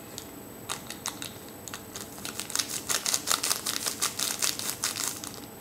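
Small foil sachet crinkling and ticking as it is squeezed and worked between the fingers to empty curry powder into a plastic tray. A few scattered crackles come first, then a dense run of quick crinkles lasting about three seconds.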